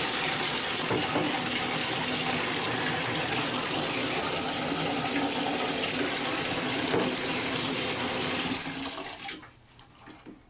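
Bathtub faucet running a steady stream of water into a plastic bucket, filling it. The flow stops about eight and a half seconds in and dies away within a second.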